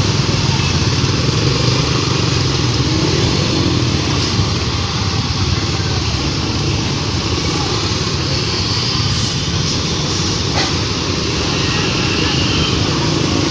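Steady roadside engine noise from motor vehicles, motorcycles among them, running without a break.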